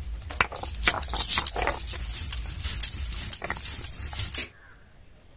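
Stone roller grinding yellow mustard seeds on a flat stone slab (sil-batta): gritty scraping strokes with crunching clicks as the seeds are crushed into paste. It stops abruptly about four and a half seconds in.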